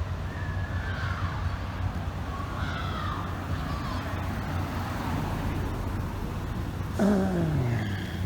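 Steady low rumble of city street traffic, with faint distant voices. About seven seconds in, a sudden louder low tone falls steadily in pitch over about a second.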